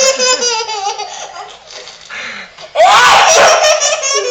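A baby laughing hard in high-pitched belly laughs, with a loud fresh burst of laughter about three seconds in.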